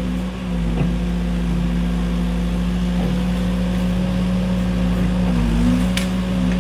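Cat 308 mini excavator's diesel engine running steadily at working throttle, its pitch dipping briefly about half a second in and again near the end as the hydraulics take load. A short sharp click or knock sounds about six seconds in.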